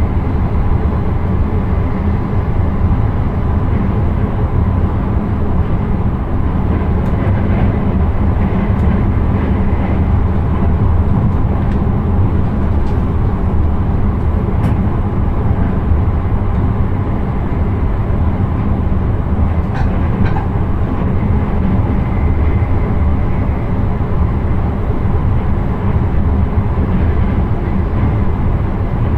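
Passenger train running along the line, heard from inside the driver's cab: a steady low rumble with a few faint clicks now and then.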